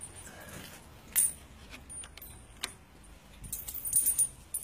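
Light metallic jingling and clicking in short, separate bursts, with a cluster of jingles near the end.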